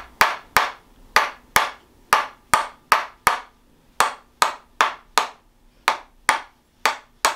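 Tok sen hammer striking a wedge stick held against a patient's back: a steady run of sharp wooden knocks, about two to three a second, with a couple of brief pauses.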